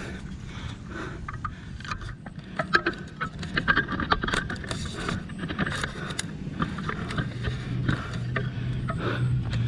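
Irregular knocks, clicks and rubbing of a camera being handled and repositioned close to the microphone, over a steady outdoor background with a low hum that grows louder near the end.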